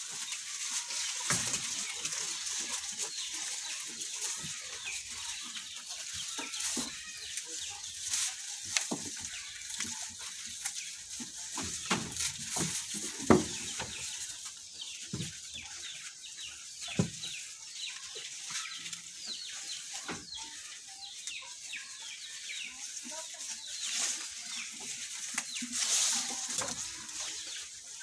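Goats feeding on fresh-cut grass from a wooden trough: steady crackling, tearing and rustling of the leaves as they pull and chew, with a few sharper knocks against the wood, the loudest about 13 seconds in.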